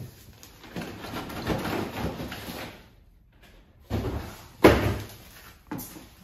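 Plastic wrap and cardboard packaging rustling as a wrapped electric bike is worked loose in its shipping box, then, after a brief pause, three heavy thuds as the bike knocks against the box, the second the loudest.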